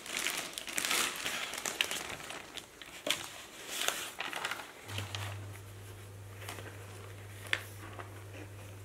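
Plastic packaging crinkling and rustling as objects are handled and unwrapped from a cardboard box, with a few sharp clicks, louder at first and thinning out. About five seconds in, a steady low hum starts and holds.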